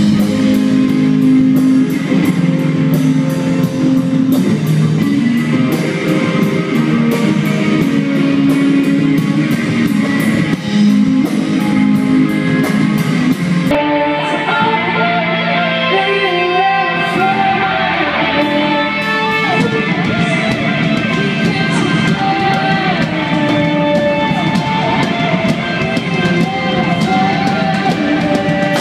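Live rock band playing loud, with electric guitars, bass and drum kit. About 14 seconds in the sound cuts abruptly to a different band playing.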